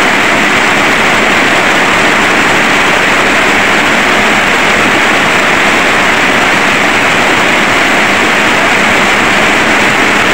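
Heavy rain pouring down in a sudden downpour: a loud, steady hiss with no break.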